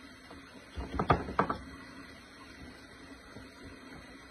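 A metal utensil stirring thick tahini sauce in a plastic bowl, knocking sharply against the bowl a few times about a second in, then stirring more quietly.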